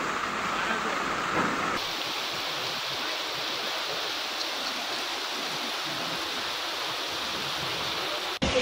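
Steady rush of heavy rain and floodwater flowing fast down a street. About two seconds in it changes to a thinner, hissier rush.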